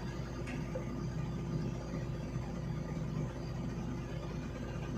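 Engine of a pile-driving rig running steadily at idle, a low even hum, while the rig stands over the pile between hammer blows.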